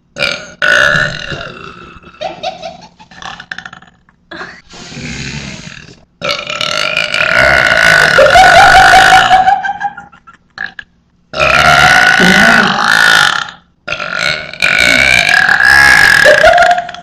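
A person burping loudly on purpose: a few short belches, then three long drawn-out ones of about three to four seconds each.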